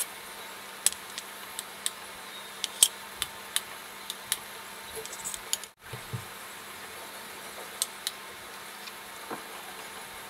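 Light, scattered clinks of a metal spoon against a stainless steel plate as steamed momos are set down on it, over a steady faint hiss. The sound cuts out briefly a little before the middle.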